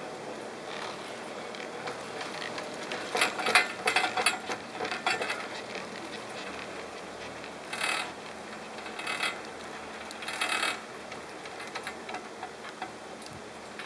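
Riding a triple chairlift: a steady hiss of the moving lift with clusters of mechanical clicking and rattling, the loudest about three to five seconds in and again near eight and ten seconds.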